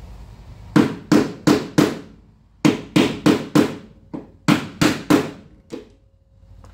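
Hammer striking the end of a flat-blade screwdriver set in a groove cut into a rusted, stripped mudguard bolt head, knocking the blade in for grip on the seized bolt. About a dozen sharp metallic blows in quick runs of three or four with short pauses, ending in a lighter tap.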